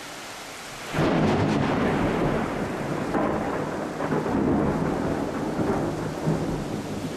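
Thunder from a nearby lightning strike: it breaks in suddenly and loudly about a second in, then rolls on as a long uneven rumble that slowly eases off, over a steady hiss of rain.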